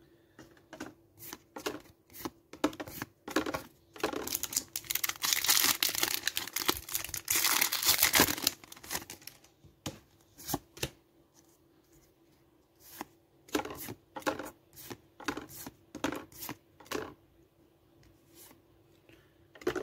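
A foil Pokémon booster pack being torn open and crinkled, a dense rustle from about four seconds in that lasts about four seconds. Short scattered clicks and swishes come from cards being slid from the back to the front of the stack one at a time.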